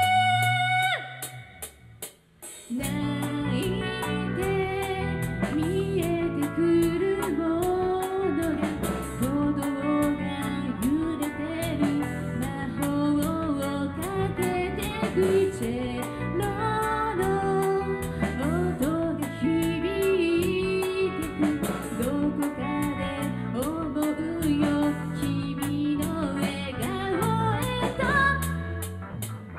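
Live rock band playing: a woman singing over electric guitars and a drum kit. The band drops out briefly about a second in and crashes back in at about two and a half seconds.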